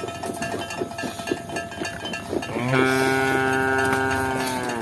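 A cow lowing: one long, steady moo starting a little past halfway and lasting about two seconds. Before it, irregular clicks and knocks.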